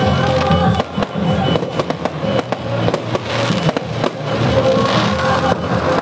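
Fireworks going off, with many sharp bangs and crackles in quick succession, over background music.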